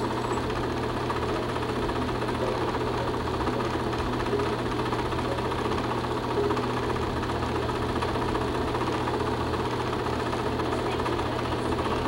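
Film projector running: a steady mechanical clatter from the film-advance mechanism over a constant low hum.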